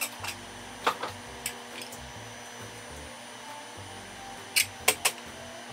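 Sharp clicks and clinks of kitchenware being handled, a couple about a second in and three close together near the end, over a steady machine-like hum.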